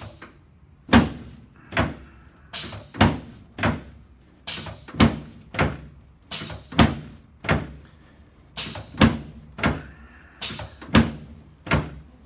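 A series of sharp thumps, about one to two a second and unevenly spaced, struck during a hands-on chiropractic adjustment.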